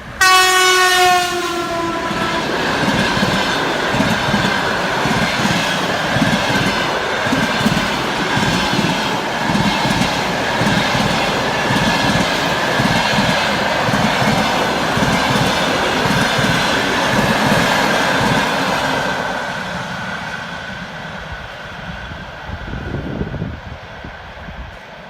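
Passing train sounding one horn blast of about two seconds, the pitch sagging slightly, as a memorial salute. Its wagons then clatter past over the rail joints with a steady high squeal, fading away near the end.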